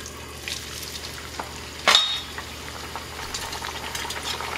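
A raw corn masa tortilla goes into hot oil in a cast-iron skillet: a sudden loud hiss about two seconds in, then a steady crackling sizzle as it fries. The oil is hotter than usual so the masa bubbles and puffs up quickly.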